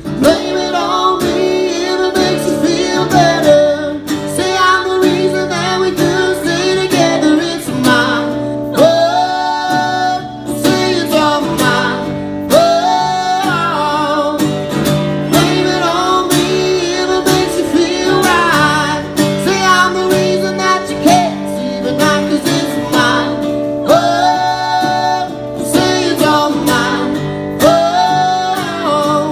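Acoustic country duet: a man and a woman singing together over a strummed acoustic guitar.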